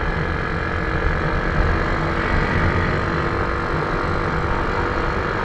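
Automatic scooter, fitted with a big-valve head and racing cam, running at a steady cruising speed, with wind rushing over the microphone.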